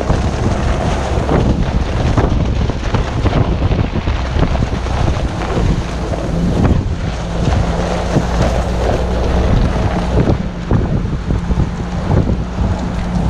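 Wind buffeting a microphone held out of a moving vehicle's window, over the steady hum of its engine and the rumble of tyres on a dirt track.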